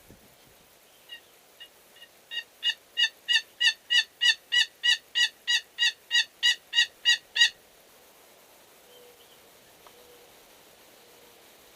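A long series of turkey yelps, about three a second: a few soft notes, then a steady run of loud, even yelps that stops abruptly about two-thirds of the way through.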